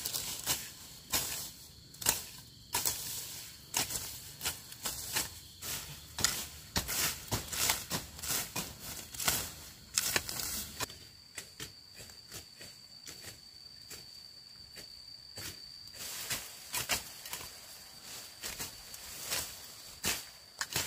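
Irregular rustling and scraping strokes. About halfway through, a steady high-pitched insect trill starts.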